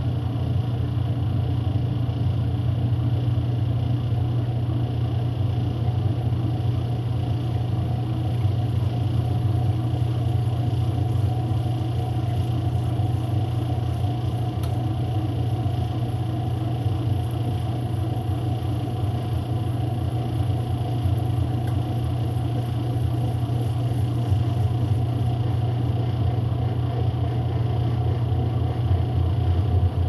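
Kenmore 80 Series direct-drive top-loading washing machine in spin, its motor humming steadily as the basket of towels spins out the wash water. The machine went into spin when it was meant to drain in neutral. Near the end the hum shifts lower and grows louder.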